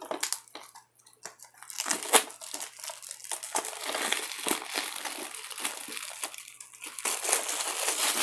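Cellophane shrink wrap being torn off a DVD case and crumpled: a few sharp clicks at first, then continuous crinkling and crackling from about two seconds in, loudest near the end.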